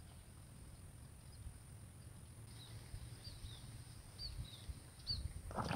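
Wind rumbling low on the microphone, with a few faint short bird chirps from about halfway through. A louder noise rises just before the end.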